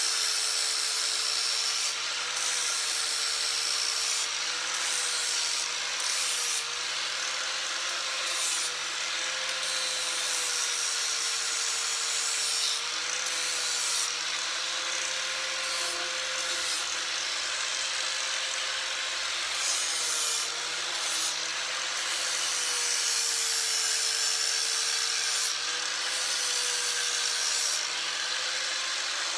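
Electric grinder running steadily as it grinds the notched end of a roll-cage tube to clean up its corners, its motor tone dipping and recovering slightly as it is pressed into the work.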